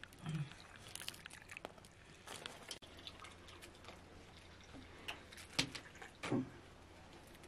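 Milk being poured from an aluminium kettle into glass mugs, a faint trickling stream with a few light clicks and knocks, the sharpest about five and a half and six and a half seconds in.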